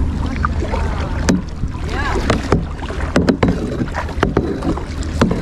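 Kayak paddling: paddle strokes in the water with several sharp knocks, over a steady low wind rumble on the microphone.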